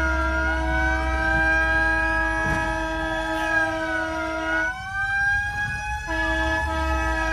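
Several fire engine sirens sounding together: wailing tones that rise and fall over a steady blaring horn-like tone, which breaks off for about a second and a half past the middle while one wail keeps rising.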